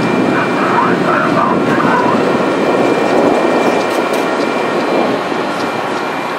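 Metra bilevel gallery commuter train at the platform, its doors sliding shut and the train starting to pull away, with a steady rumble throughout. A voice is heard in the first two seconds.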